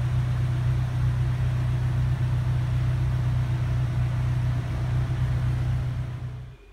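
2013 Morgan Plus 4's Ford four-cylinder engine idling steadily with a low, even hum. The sound cuts off sharply near the end.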